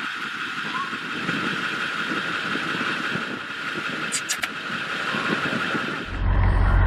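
Steady outdoor background hiss, with a few short high clicks about four seconds in. Near the end a low vehicle engine hum takes over.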